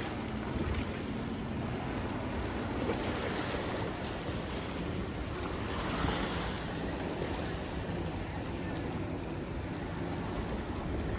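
Small sea waves washing and sloshing against seaweed-covered rocks at the shore, with wind rumbling on the microphone. One wash about six seconds in is the loudest.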